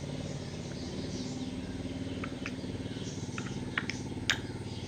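Metal spoon stirring wheat-flour dough in a glass bowl, giving a few light clicks against the glass, the sharpest near the end, over a steady low hum.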